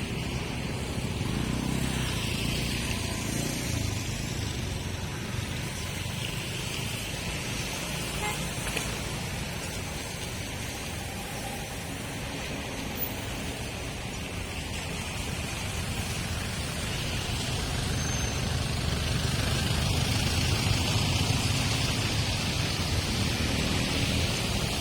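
Road traffic on a rain-wet street: a continuous wash of engine rumble and tyre noise from passing vehicles, growing louder over the last few seconds.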